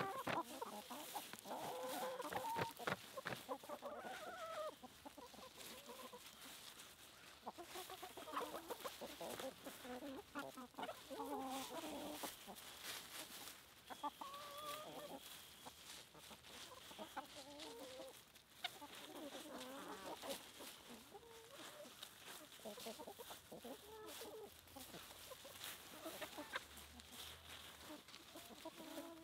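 Flock of chickens clucking, with many short calls overlapping one another amid scattered short clicks.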